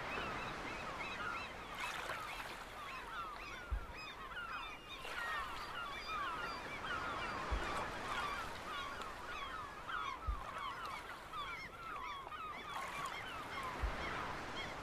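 A flock of birds calling continuously, many short overlapping calls, with a short low thud every three to four seconds.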